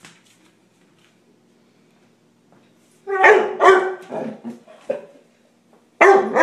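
Young dog barking at a lemon on the floor: two loud barks about three seconds in, a few shorter, softer yips after them, and another loud bark near the end.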